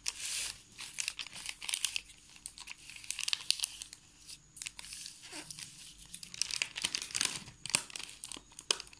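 Glossy glace paper crinkling and crackling in uneven bursts as hands fold it inward and press it against the corner of a cardboard shoe box.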